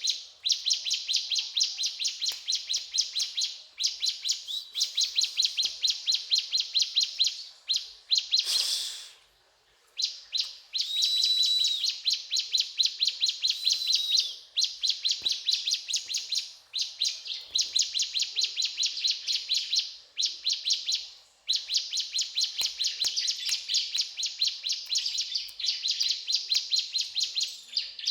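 Ciblek gunung (a prinia) singing continuously in rapid, rattling trills of sharp repeated notes, burst after burst with short pauses between.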